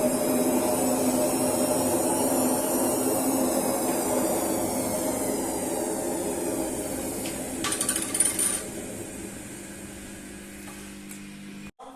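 Samsung washing machine drum spinning with a steady hum from worn drum bearings, slowly fading as it winds down, with a short rattle about eight seconds in. The repairer puts the hum down to drum bearings ruined by water that leaked past the drum shaft seal.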